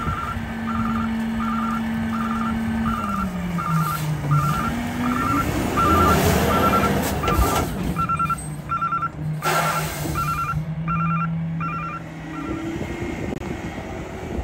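McNeilus rear-loader garbage truck's warning alarm beeping about one and a half times a second over the steady hum of the engine and hydraulics. The hum drops in pitch about three to four seconds in, and the beeping stops near the end.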